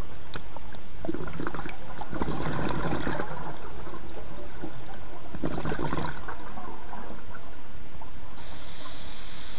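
Scuba diver's exhaled bubbles coming off the regulator underwater, twice: a long breath about a second in and a shorter one about five seconds in, over a steady low underwater rumble.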